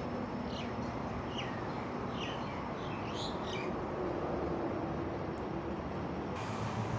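Birds chirping faintly in a short run of quick chirps over steady background noise.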